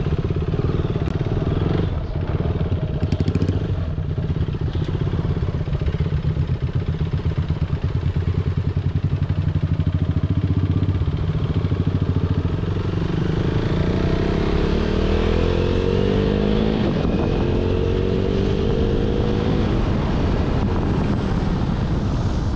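A vehicle engine running steadily with a pulsing beat. Its pitch climbs over several seconds in the second half as it speeds up.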